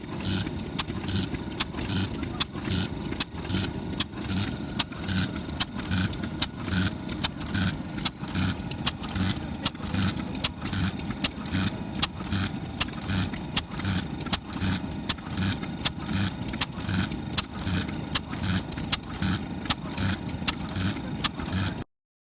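Kubota FF-type 10 hp stationary engine running slowly and evenly, each firing a low thump with a sharp tick, in a steady regular beat. It is firing cleanly after a spark plug change cured its misfire. The sound cuts off abruptly near the end.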